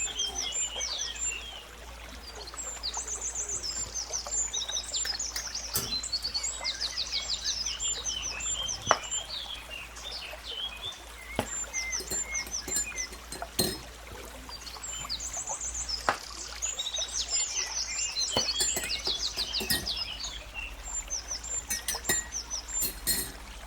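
A songbird singing long warbled phrases of rapid high trills, twice, with short chirps between. Scattered sharp clicks and knocks fall through it, over a steady low hum.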